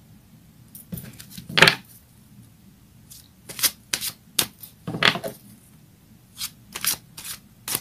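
Goddess oracle cards being handled and shuffled: an irregular run of short card slaps and flicks, the loudest about two seconds in.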